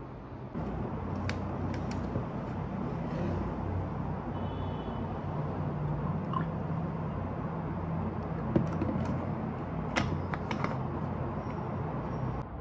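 Milk poured from a plastic bottle into a ceramic cup over a steady low hum, with a few sharp clicks and knocks as the bottle and cup are handled on the wooden table, the loudest a little past two-thirds of the way through.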